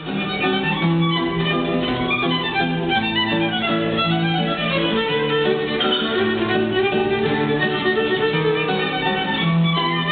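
A violin and an acoustic guitar playing a tune together, the fiddle carrying the melody with some sliding notes.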